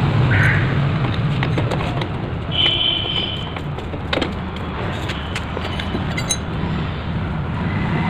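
Scattered metal clinks as a loose motorcycle rear sprocket and spanners are handled, over a steady low background hum. A short high tone sounds about two and a half seconds in.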